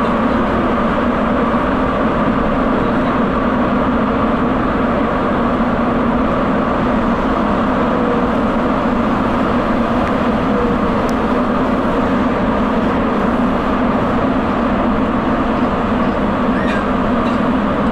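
Sapporo subway Tozai Line train running through its tunnel on rubber tyres: a loud, steady rolling noise with a constant low hum.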